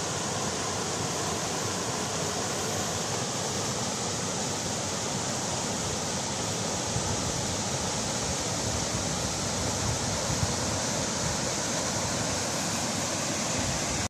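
A small waterfall on a stream, water tumbling over a low drop and rushing steadily with a constant splashing hiss.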